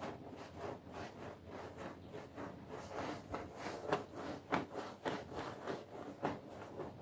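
Repeated scraping strokes on a carpet during cleaning, short and irregular, several a second, a few of them louder in the middle.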